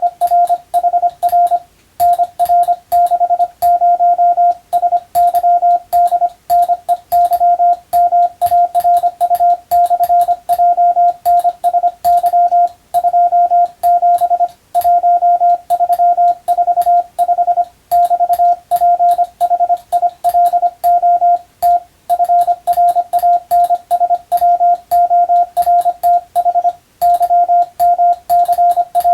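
Morse code (CW) sent by hand on a telegraph key: a single-pitch sidetone keyed rapidly on and off in dots and dashes, with short pauses between letter groups and light clicks as the tone switches.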